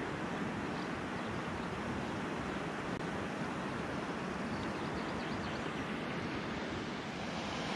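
Steady rushing of river water, an even noise with no pauses.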